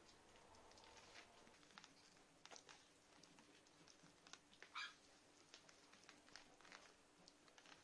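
Faint sounds of a litter of young puppies: soft squeaks and small rustling and scratching sounds, with one brief, louder squeak about five seconds in.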